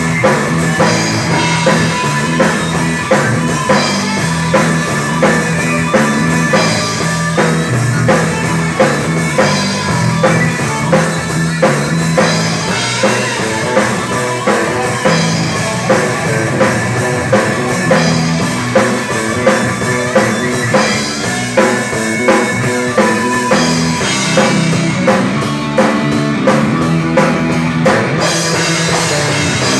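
Live rock band playing: drum kit keeping a steady beat, with amplified electric guitar and bass guitar.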